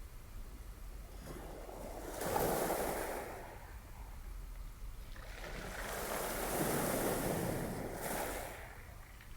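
Recorded ocean waves breaking on a shore: two slow swells of surf, the first peaking about two and a half seconds in and a longer one from about six to eight seconds, each rising and falling away.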